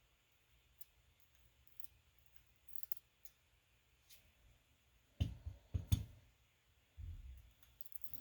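Light metallic clicks and taps from tweezers handling the small pins and springs of a disassembled cylinder lock, with a few louder handling knocks about five to six seconds in and again around seven seconds.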